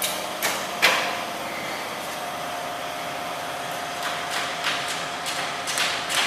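A machine running steadily with a faint whine, broken by sharp clacks: two about half a second and a second in, and a cluster of several more in the second half.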